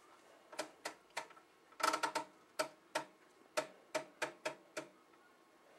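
A rotary switch knob, most likely the oscilloscope's time/division selector, turned click by click through its detents: about a dozen short, sharp clicks over roughly four seconds, several of them close together about two seconds in.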